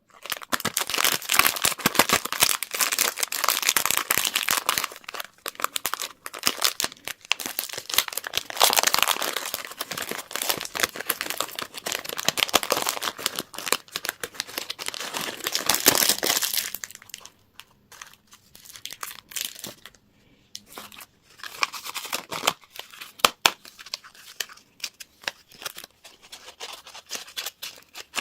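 Candy wrappers crinkling and tearing as they are opened: a dense, continuous crackle for about the first two-thirds, then sparser, broken-up crinkles.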